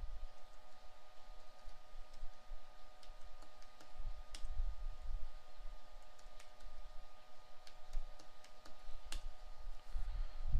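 Typing on a computer keyboard: scattered, irregular key clicks as commands are entered, over a faint steady hum.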